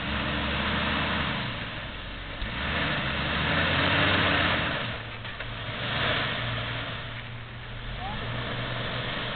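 Jeep Wrangler's engine running at low speed as it crawls up a rocky off-road hill, the revs swelling and easing several times as throttle is fed in.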